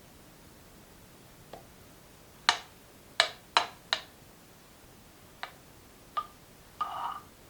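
Utensils tapping and clinking against ceramic or glass tableware. There is a faint tap, then four sharp clicks in quick succession, then lighter taps and a short ringing clink near the end.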